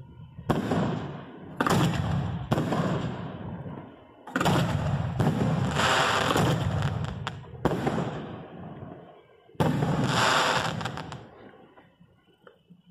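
Aerial fireworks fired close by: a string of loud bangs from shells and comets launching and bursting, about six in ten seconds, each fading out slowly, then dying away near the end.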